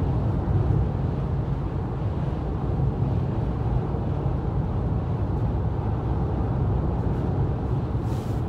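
Steady low rumble of road and engine noise inside a car cabin at highway speed, with a brief hiss near the end.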